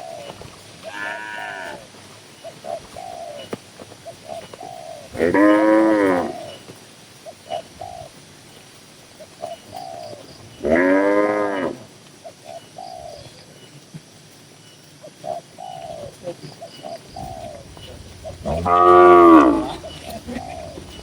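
Cows mooing in a cattle shed. There are three loud, drawn-out moos of about a second each, spaced several seconds apart. Shorter, fainter calls from other cattle fill the gaps.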